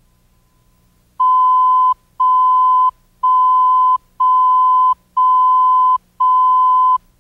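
Countdown leader beeps: six identical single-pitch beeps, one a second, each lasting most of a second, marking the numbers counting down before the programme starts.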